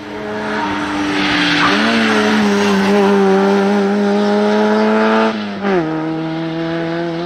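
Peugeot 106 rally car's engine revving hard as it drives past, held high for a few seconds before the revs drop sharply about five seconds in and settle at a lower note.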